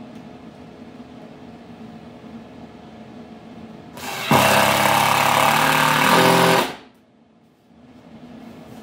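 Cordless drill driving a screw into a wood slab to hold it down to the CNC bed. It spins for about two and a half seconds, starting about four seconds in, and stops abruptly.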